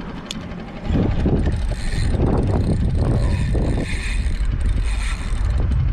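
Spinning fishing reel cranking, its drag working, while fighting a hooked jack. Underneath is a loud low rumble that starts about a second in.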